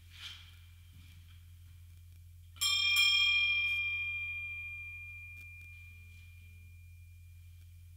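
A small bell struck twice in quick succession, then ringing out with a clear tone that slowly fades over several seconds.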